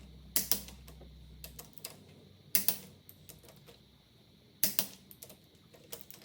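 Sharp, sporadic clicks and clinks of hand tools being used on the engine during reassembly: two in quick succession near the start, one at about the middle, another quick pair later, and one near the end.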